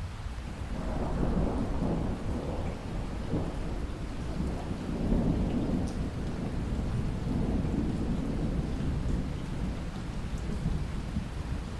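Steady rain with a long roll of distant thunder that swells about a second in and rumbles on in slow waves through the rain.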